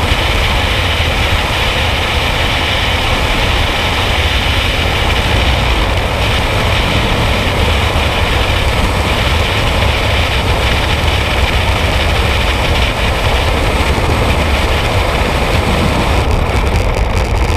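Loud, steady rush of freefall wind buffeting the microphone of a skydiver's helmet-mounted camera.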